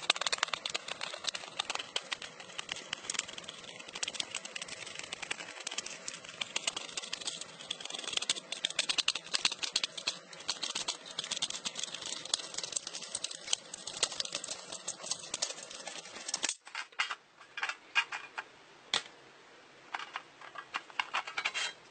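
U.S. Army pocket can opener (P-38) cutting open the lid of a tin ration can: rapid, continuous clicking as the blade is rocked around the rim. About sixteen seconds in the clicking stops, leaving a few scattered clicks and taps.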